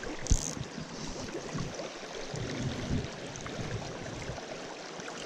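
Fast, high creek water rushing steadily over a riffle, with a few low bumps in the first three seconds.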